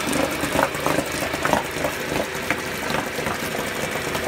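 1985 Mariner 4 hp (Yamaha-built) outboard motor running steadily in a test bucket, churning the water. It runs smoothly, its carburettor freshly cleaned and its water-pump impeller new.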